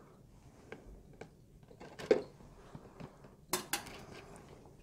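Long metal tweezers clicking and knocking against a plastic tub and the soil inside it, a few scattered sharp clicks with the loudest pair about three and a half seconds in.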